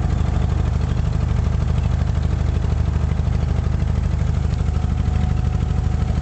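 Dubai Creek abra water taxi's inboard diesel engine running steadily under way, a loud low drone with a rapid, even pulse.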